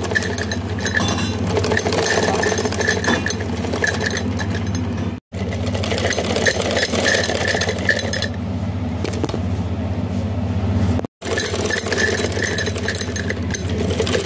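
Sewing machine running steadily as it stitches fabric, its needle and motor going without a break except where the sound cuts out completely twice, about five and eleven seconds in.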